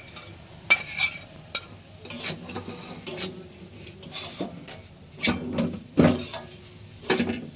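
A spatula stirring and scraping around a kadai of cooking coconut, milk and grated khoa, with irregular clinks and scrapes and a faint sizzle underneath.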